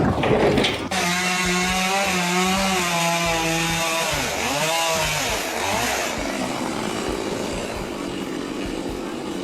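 A small high-revving engine or power-tool motor starts running sharply about a second in, its pitch dipping and recovering twice around the middle as if briefly loaded, then running on steadily.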